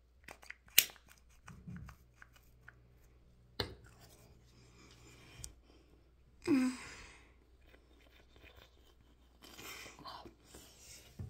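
Scattered small clicks and scratchy rustles from handling a toothpaste tube and toothbrush, with one short vocal sound about six and a half seconds in.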